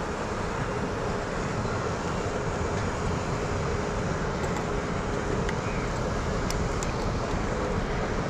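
Steady deep rushing background noise with a faint steady hum underneath, and a few faint ticks late on.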